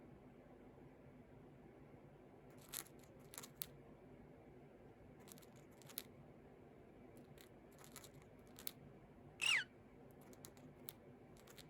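Cockatiel grinding its beak: faint, scattered clicking and scraping, with one short falling chirp a little over halfway through.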